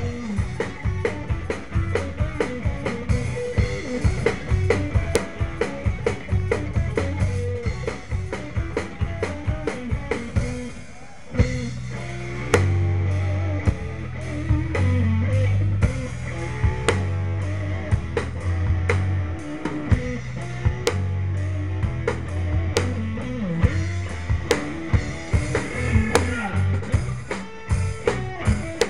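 Live rock band playing through amplifiers: drum kit and electric guitars with a strong low bass line. About eleven seconds in the music drops briefly, then comes back with heavier low notes.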